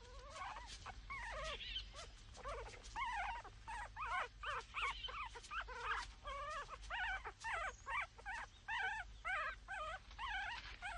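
Wolf pups whimpering and squealing in the den: a steady run of short, high, wavering whines, about two a second.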